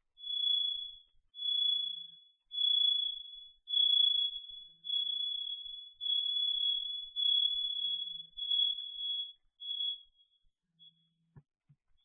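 A series of high-pitched electronic beeps, one steady pitch, about one a second, fading out after about ten beeps; a single click near the end.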